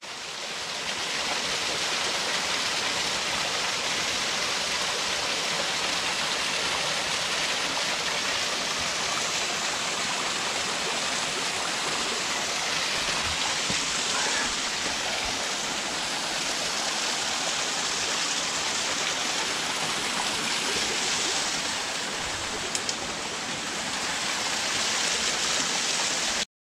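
Mountain stream running: a steady rush of water that holds even throughout.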